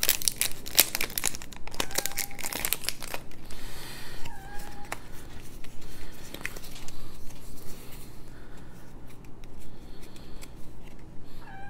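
Wrapping being torn and crinkled off a small pack of game cards by hand, in a run of crackly tearing sounds that is busiest in the first few seconds and sparser after.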